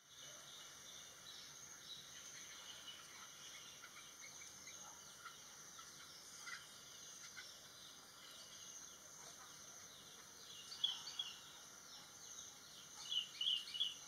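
Faint outdoor birdsong ambience: scattered short, high bird chirps over a steady high insect buzz, with a few louder quick chirps about eleven seconds in and a quick run of them near the end.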